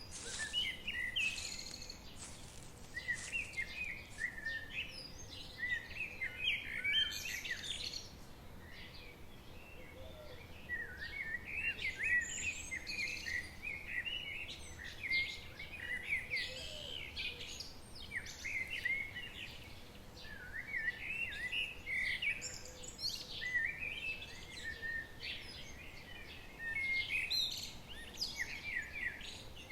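Several songbirds chirping and singing in quick, overlapping phrases, over a faint, steady background hiss.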